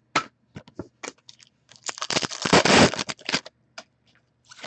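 Hockey trading cards being handled and slid against one another: light clicks and rustles, then a longer, louder scraping rustle from about two seconds in to past three seconds, followed by a few more clicks.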